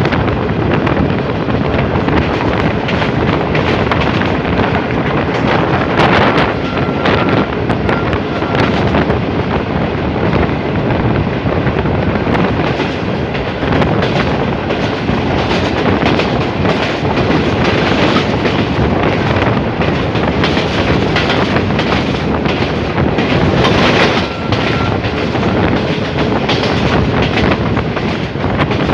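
Express passenger train running fast, heard from an open coach door: a steady rumble of wheels on rail, with clattering over rail joints and points. The clatter gets louder about six seconds in and again near 24 seconds.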